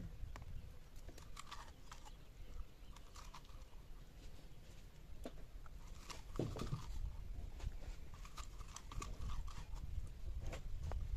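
Fingers scraping seeds out of a small hollowed seed squash, with irregular small clicks and taps as seeds and the rind knock and drop onto the sack below. A steady low rumble runs underneath.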